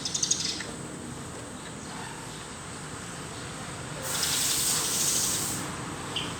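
A short rattle of metal clicks, then about four seconds in a sharp hiss of gas under pressure that lasts under two seconds and cuts off.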